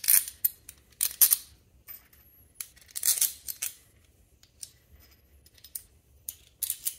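Steel 1/4-20 bolts clinking and scraping against a black metal plate as they are pushed by hand through its holes: short clusters of sharp metallic clicks with quiet gaps between.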